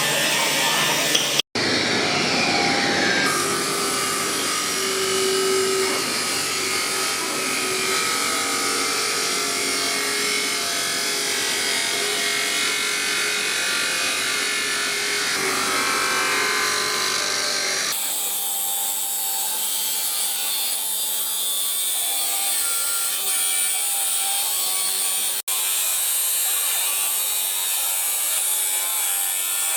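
Power tools working steel for a cleaver blade: a steady grinding, sawing kind of noise that changes abruptly twice where the footage is cut.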